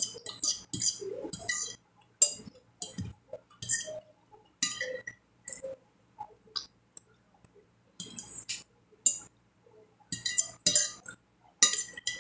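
Metal spoon clinking and scraping against a glass plate of food in short, scattered strokes, mixed with the mouth sounds of eating.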